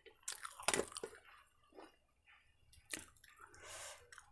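A person chewing dosa close to a clip-on microphone, with a few short wet clicks and smacks. Near the end there is a soft squelch as a piece of dosa is dipped into red chilli chutney.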